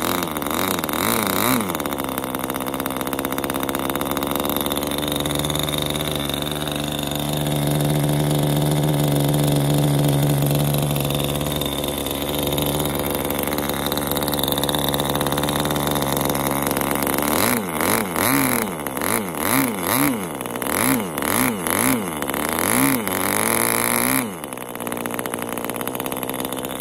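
O.S. Max 20 model glow engine running on a test stand at a steady, high speed that climbs a little in the middle. Later it revs up and down over and over, about one and a half times a second, for several seconds, then settles to a slower, quieter run near the end.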